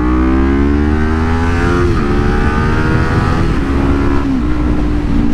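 Kawasaki Ninja 400's parallel-twin engine pulling up through the gears: its pitch climbs, drops sharply on an upshift about two seconds in, climbs again and then evens out, and drops once more on another shift about four seconds in. Heavy wind rumble sits underneath at road speed.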